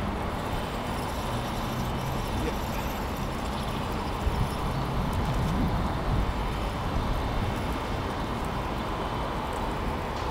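Steady low rumble of road traffic, with an engine hum that rises and falls about halfway through.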